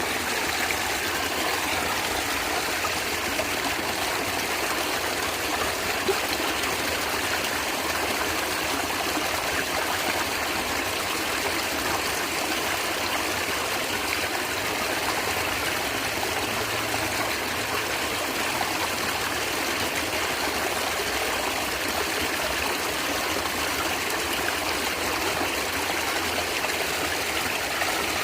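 A natural stream of water running and gurgling steadily.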